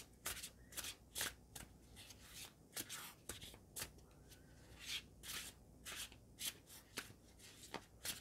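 A tarot deck being shuffled by hand: a quiet run of short, crisp card strokes, about two or three a second, with a brief pause a little after the middle.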